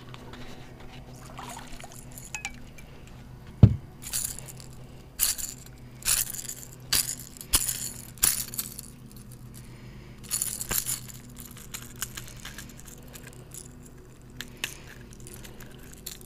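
A hooked bass being handled: one loud thump about four seconds in, then a run of short clinking rattles over several seconds as the fish shakes, its crankbait and treble hooks rattling.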